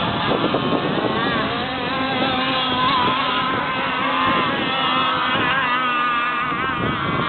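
Radio-controlled model race boat's engine running at high revs as it planes across the water, a high buzzing whine whose pitch wavers up and down.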